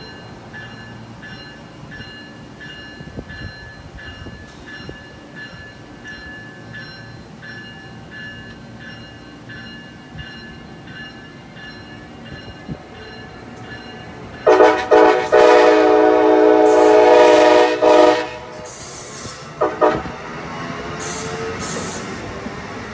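Amtrak passenger train rolling past at close range, its cars' wheels giving a steady high ringing that pulses regularly. About two-thirds in a train horn sounds one long blast, followed by a few short toots.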